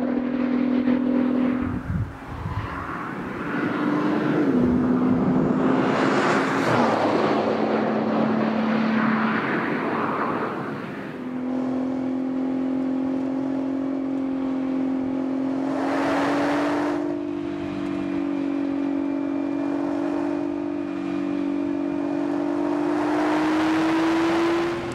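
Nissan GT-R's twin-turbo V6 engine and exhaust driving at speed on the road. For the first ten seconds the pitch climbs and drops back several times, with rushes of tyre and wind noise as the car passes. After that comes a steady engine drone that rises slowly in pitch.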